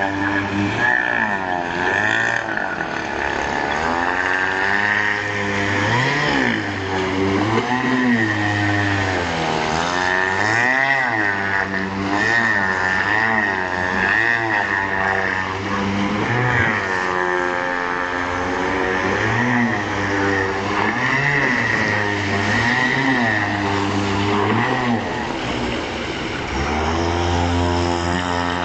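Small engine of a radio-controlled model speedboat running at speed, its pitch rising and falling again and again as it races and turns on the water.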